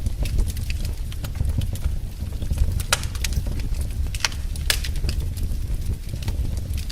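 Wood fire in a fireplace crackling: scattered sharp pops and snaps, a few louder ones near the middle, over a steady low rumble of the flames.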